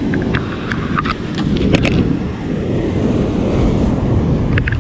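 Wind buffeting the microphone over the wash of breaking surf, a steady low rumble. Scattered light clicks run through the first two seconds, and a few more come near the end.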